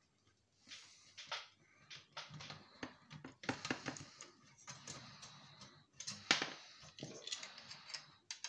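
Screwdriver working the screws out of a small cooling fan in a stripped electronics unit: irregular light clicks and short scrapes, with a sharper knock about six seconds in.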